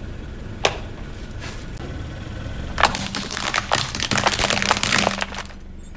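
Plastic toy guns cracking and snapping as a car tyre rolls over them: a single sharp click, then about halfway through a rapid run of cracks and snaps lasting two to three seconds.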